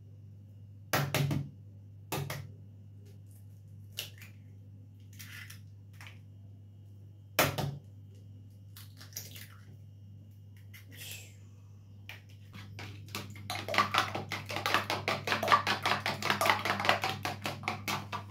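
Eggs being cracked open against the rim of a small bowl, a few separate sharp knocks, then beaten briskly with a fork: a rapid run of clicking of the fork against the bowl for about five seconds near the end.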